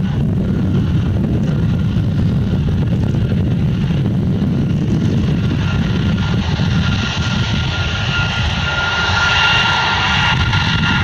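A US Air Force RC-135 Rivet Joint taxiing on its four CFM F108 turbofan engines at low taxi power. A steady low rumble runs under a high engine whine, and the whine grows louder over the last few seconds as the aircraft swings nose-on.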